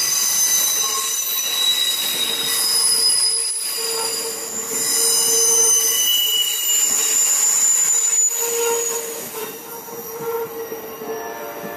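Amtrak passenger cars rolling past at speed, the wheels squealing with several high-pitched ringing tones over the rumble of the train. The sound fades near the end as the last car goes by.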